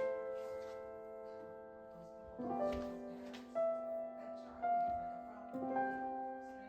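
Soft background music: slow, sustained piano chords with a simple melody on top, the chord changing every two to three seconds.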